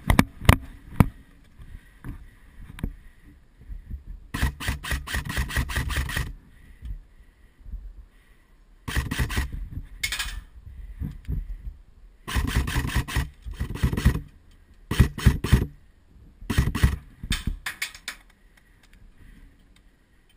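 Airsoft electric gun firing on full auto in several rapid bursts of clicking shots, each lasting from about half a second to two seconds, with short pauses between. A few sharp knocks sound in the first second.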